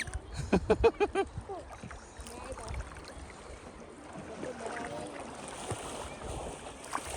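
A young child's high squeal and a quick run of short, voice-like calls, then steady water and wind noise with faint voices.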